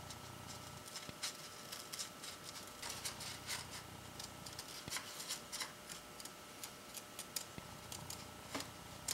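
Scissors cutting through a folded brown paper grocery bag: a run of faint, irregular snips, several a second.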